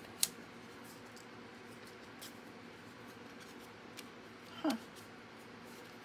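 Light handling of cardstock pieces on a glass cutting mat: one sharp click just after the start as a paper piece is set down, then a few faint ticks. About three-quarters of the way through there is a short sound that falls in pitch.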